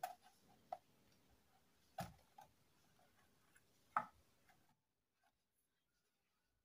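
Near silence broken by a few faint, short clicks, the clearest about two and four seconds in.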